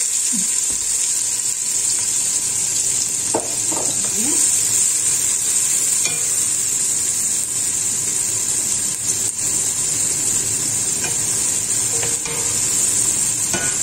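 Diced onion sizzling steadily in hot vegetable oil and pork fat in a large pot, with a few scrapes of a spoon stirring it: the onion frying at the start of a sofrito.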